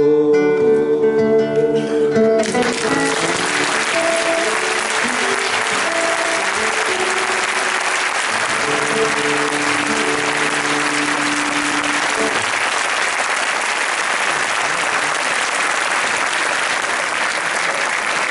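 Two classical guitars play the closing chords of a song. About two seconds in, applause breaks out and runs on, with the guitars still sounding softly beneath it for several more seconds.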